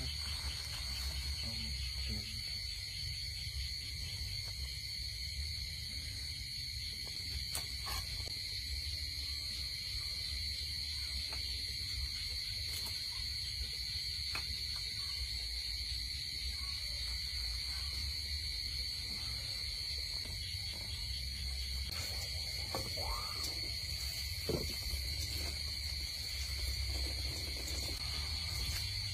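Steady high-pitched drone of insects at two pitches, with a few faint knife taps on a wooden chopping block.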